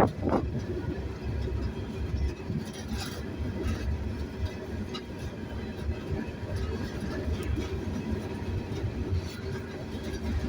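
A coal car of a freight train rolling slowly on the rails, heard from aboard: a steady low rumble with scattered faint clicks and clanks.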